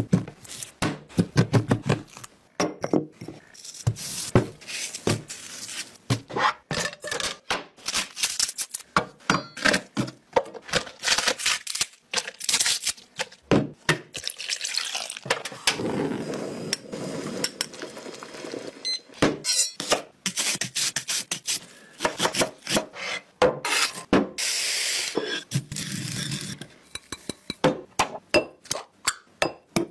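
Food-preparation sounds from a recipe video: a quick run of knocks and clinks of utensils against pots, dishes and bowls. There are longer noisy stretches about halfway through and again near the end.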